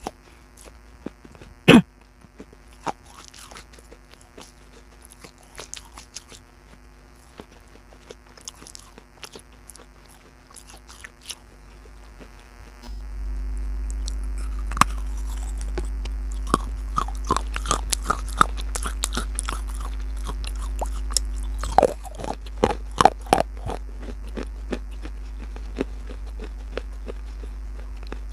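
Close-up crunching and chewing of hard baked clay pot pieces: one sharp loud bite about two seconds in, then scattered crunches that grow dense in the second half. A steady low hum comes in about halfway and eases off a few seconds before the end.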